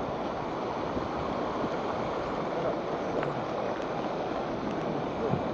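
Heavy rain pouring down, with floodwater running along the street: a steady rushing noise.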